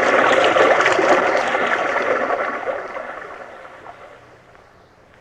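Rushing river water, a radio-drama sound effect of rapids: a steady rushing noise that fades out from about halfway through.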